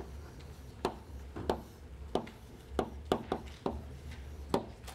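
Chalk knocking against a blackboard while writing: about eight short, sharp taps at irregular intervals, over a low steady hum.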